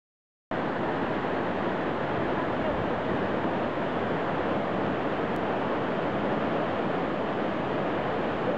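The fast-flowing Aare river rushing, a steady, even rush of whitewater. It starts about half a second in.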